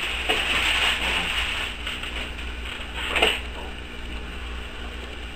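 Rustling and crinkling of gift wrap and packaging as presents are unwrapped, with a short knock about three seconds in.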